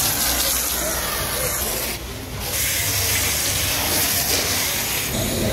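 Pressure-washer foam lance spraying snow foam with a steady hiss, dropping off briefly about two seconds in, over a steady low hum.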